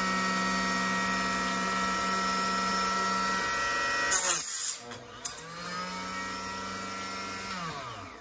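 Harbor Freight mini chop saw's motor whining steadily. About four seconds in, the abrasive blade is brought down and cuts the neck off a brass 25-06 rifle case in a short, loud burst. Near the end the motor spins down with a falling pitch.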